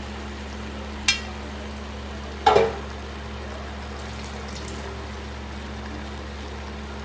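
Chicken pieces and onion masala frying in a pot, a steady sizzle over a constant low hum, with two short knocks about a second and two and a half seconds in.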